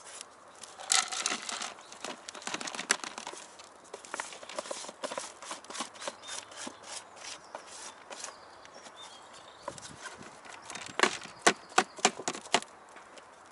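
Method-feeder groundbait being rubbed through a riddle by hand, a scratchy rasping of damp crumbs against the mesh. Near the end come about six sharp knocks in quick succession as the riddle is tapped against the bowl to knock it clean.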